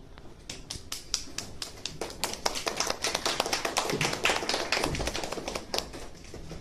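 Small audience clapping, a few sharp claps close by among the rest. The clapping builds about two seconds in and thins out near the end.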